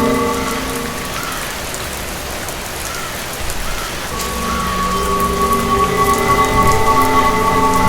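Steady rain with a sustained eerie drone of held tones layered over it; the drone fades away early and swells back in about halfway through.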